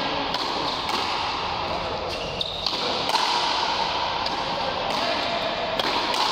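Frontenis rally: the ball cracking off rackets and the front wall, a sharp hit roughly every second, irregularly spaced and echoing in a large hall, over steady background noise.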